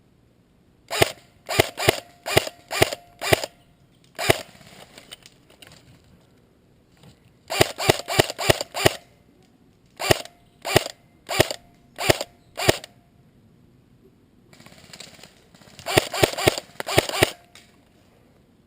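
Airsoft rifle firing sharp single shots in strings, about two a second. Quicker clusters of shots come about eight seconds in and again near the end.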